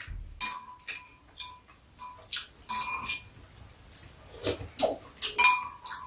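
Metal spoons and chopsticks clinking against ceramic bowls, several taps ringing briefly, with a cluster of louder eating sounds from sipping soup off spoons a little past the middle.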